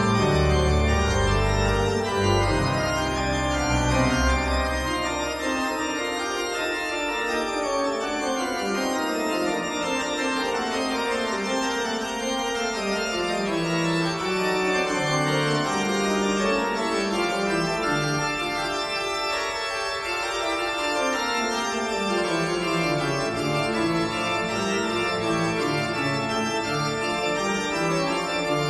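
Organ music: held chords with melody lines stepping downward. The deep bass notes drop out about six seconds in.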